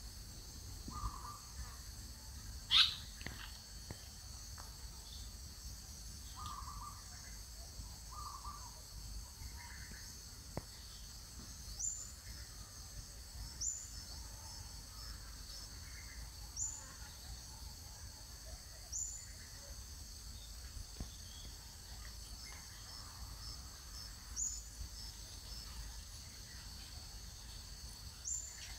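Outdoor woodland ambience: a steady high insect drone, with a bird's short rising chirp repeated every two to five seconds through the second half. A few soft, low calls sound in the first ten seconds, and one loud, sharp sweeping call about three seconds in.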